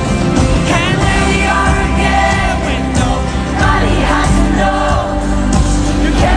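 Live pop concert music: a woman singing lead into a microphone over acoustic guitar and band.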